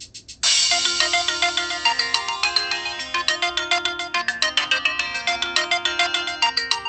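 A preloaded ringtone playing from the Casio G'Zone Boulder phone's speaker: an electronic melody of fast, quick notes that starts about half a second in, after a short pause.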